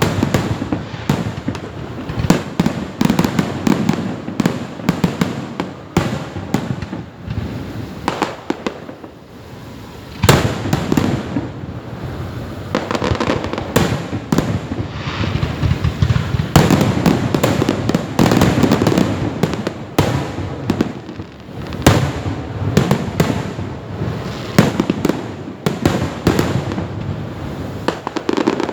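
Fireworks display: a dense barrage of bangs and crackle from bursting shells, with a short lull about nine seconds in before the barrage picks up again.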